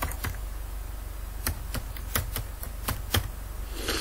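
Computer keyboard keys tapped in short, irregular strokes, about a dozen keystrokes, over a steady low hum.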